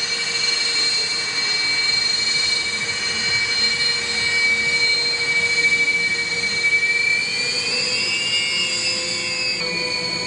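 Jet aircraft engines whining at an airshow, with a steady high-pitched turbine tone over a rushing noise. The whine rises in pitch about three-quarters of the way through and drops back abruptly near the end.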